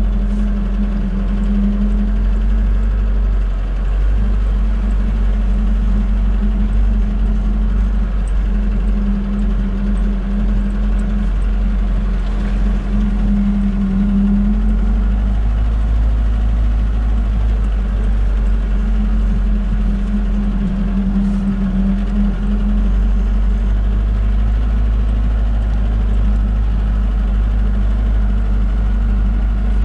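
UAZ Bukhanka van's engine running steadily as the van drives along a muddy off-road track, an even low drone.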